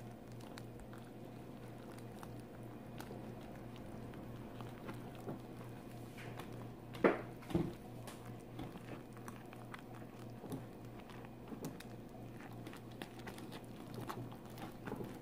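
Whisk stirring a stiff, still-dry corn dog batter of pancake mix, cornmeal, eggs and water in a glass bowl: faint, irregular pattering and light clicks, with a brief louder sound about seven seconds in. A low steady hum underneath.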